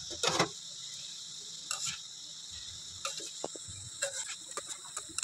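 Boondi sizzling as they deep-fry in hot oil in a steel wok: a steady high hiss. A few clicks and scrapes of a metal skimmer against the pan come through it, more of them near the end.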